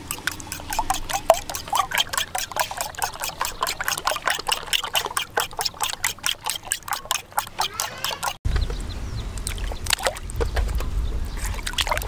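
A metal fork beating raw egg yolks in a glass bowl: rapid wet tapping strokes against the glass, several a second. About eight seconds in the sound cuts to water sloshing as fish are handled in a plastic basin.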